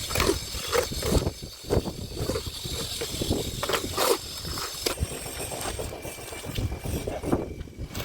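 Concrete slab pour: irregular knocks, clatter and scrapes of tools and concrete.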